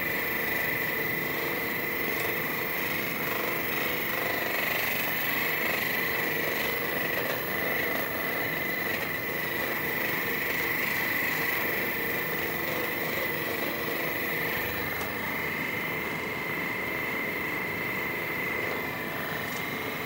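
A small electric motor runs steadily with a high whine throughout.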